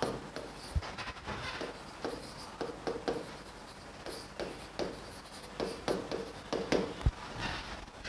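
A stylus pen writing on the glass of an interactive touchscreen display: faint, irregular strokes and light taps as letters are formed, with two soft low thumps, one about a second in and one near the end.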